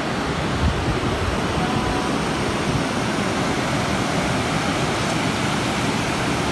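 River water rushing over rocks and a low weir: a steady, even wash of water noise.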